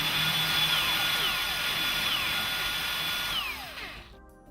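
Electric drill running at speed while drilling small pilot holes. Its whine dips briefly a few times, then the motor winds down and stops near the end.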